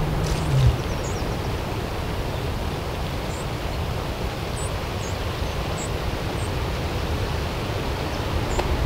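Steady outdoor rushing noise, with faint, short, high-pitched chirps of small birds about seven times across it.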